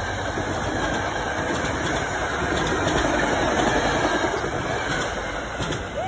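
Locomotive-hauled passenger coaches rolling past at close range: a steady rush of wheel-on-rail noise, easing slightly near the end as the train pulls away.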